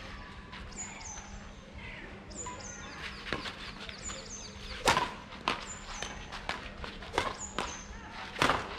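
A badminton rally: rackets striking the shuttlecock with sharp cracks a second or so apart, the hardest hit about five seconds in. Through it, a bird repeats a pair of short, high, falling chirps.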